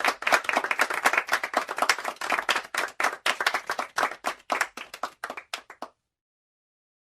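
Hands clapping quickly in a dense run of sharp claps, thinning to a few separate claps and stopping about six seconds in.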